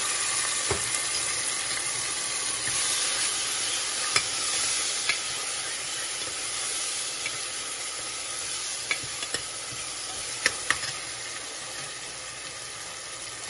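Chopped onions, tomatoes, ginger and green chillies sizzling in hot oil in an aluminium pressure cooker while a steel ladle stirs them, clinking against the pot a few times. The sizzle slowly dies down.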